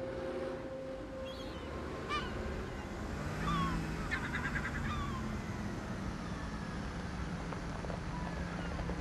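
Seagulls calling in scattered cries, one a quick run of repeated notes about four seconds in. A low steady hum sits underneath from about three seconds in.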